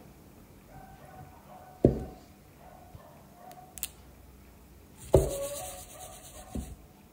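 Two sharp knocks about three seconds apart, the second followed by a short clatter, with a few lighter clicks between them: objects being handled and set down in a kitchen.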